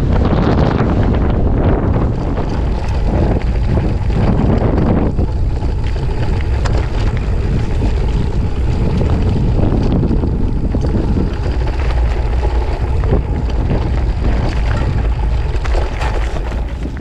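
Strong wind buffeting the microphone of a mountain bike descending a rocky dirt trail, with the tyres rolling over loose dirt and stones and the bike knocking and rattling over bumps.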